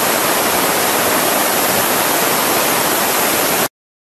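F-16 fighter jet's engine running on the flightline, heard as a loud, steady rushing noise with no clear whine or pulse; it cuts off abruptly near the end.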